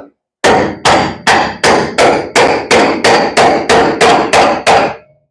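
A hammer pounding on a part to force it, about thirteen steady blows at roughly three a second, each with a ringing note.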